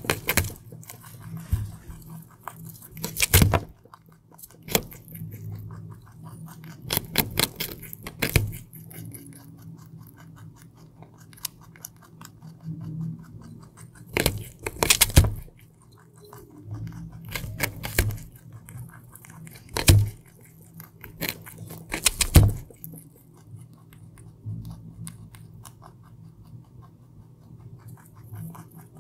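A baby rabbit is crunching and chewing raw carrot close to the microphone. Sharp crisp bites come every two seconds or so, some in quick runs, with softer chewing between them and a faint steady low hum underneath.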